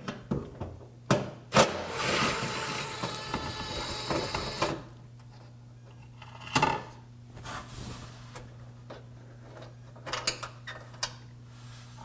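Cordless impact gun running for about three seconds as it backs out a bolt, followed by a few light clicks and knocks of the loosened metal cowl and bolt being handled.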